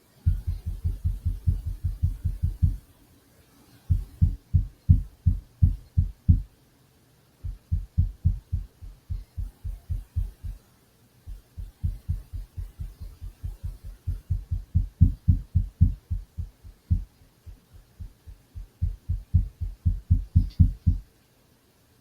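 Rapid deep banging, about five thuds a second, in runs of a few seconds broken by short pauses.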